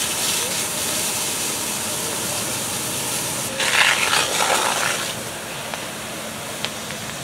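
Steady hissing of steam and smoke venting off water-soaked, smouldering barn debris, swelling into a louder rush for about a second and a half in the middle, with a few faint ticks later.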